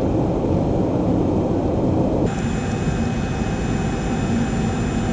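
Steady engine and airflow noise of a turbofan jet airliner in flight, heard from inside the cabin. About two seconds in the sound changes abruptly, as at a cut between recordings, and a thin high whine runs through the rest.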